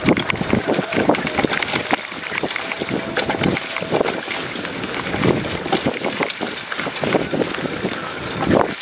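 Mountain bike riding over a rough dirt trail: tyres rolling on the dirt and the bike rattling in rapid, irregular knocks, with wind buffeting the microphone.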